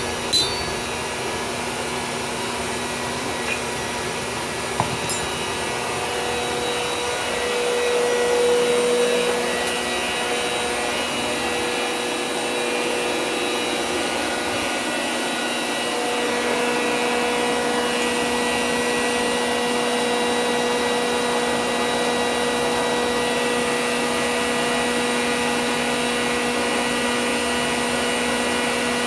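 Forge blower running with a steady whir and hum, its pitch holding level, with a few light metallic clinks in the first few seconds.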